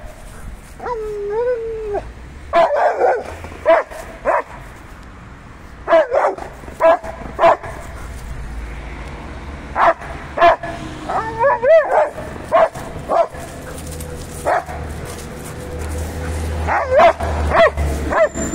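Young Rottweiler giving high yelping barks and whines in short bursts, about every second, with a wavering whine about a second in: excited, frustrated calling at a cat it wants to play with.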